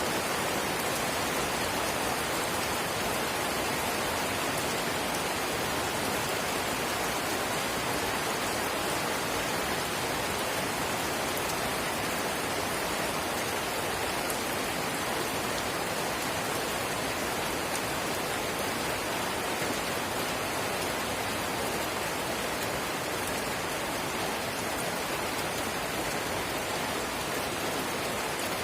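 Light rain (drizzle) falling steadily, an even hiss with fine drop ticks.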